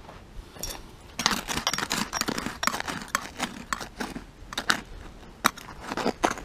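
Digging out soil by hand in a blocked soakaway drain: a quick, irregular run of short scraping and scooping strokes that starts about a second in.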